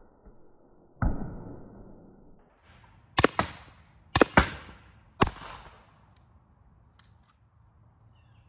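Valken M17 magfed paintball marker firing 9.9 g riot balls into a watermelon: about six sharp shots over four seconds, several coming in quick pairs about a fifth of a second apart.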